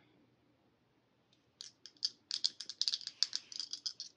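Two dice shaken in cupped hands, rattling in a quick run of small clicks that starts about a second and a half in.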